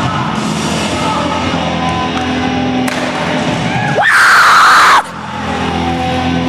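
Music soundtrack with steady held tones. About four seconds in, a loud noisy burst lasting about a second cuts in and stops abruptly.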